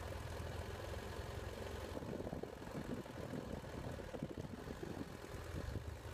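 BMW F800GS's parallel-twin engine running steadily at low revs as the bike rolls slowly, a steady low drone with rougher, uneven noise through the middle.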